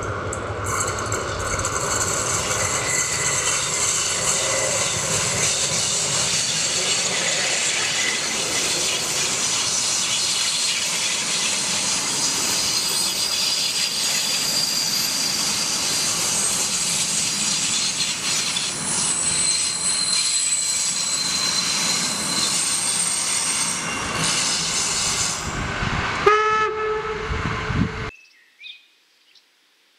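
Steam special train hauled by DR class 52 2-10-0 locomotive 52 8154-8 passing close by on a curve: a steady loud rumble and clatter of the locomotive and then its coaches rolling past, with thin high tones coming and going. A short pitched tone sounds near the end, and the sound cuts off suddenly about 28 seconds in.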